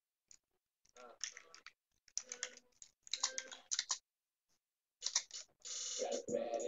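Computer keyboard typing in short bursts of quick key clicks, separated by pauses. A woman's voice comes in near the end.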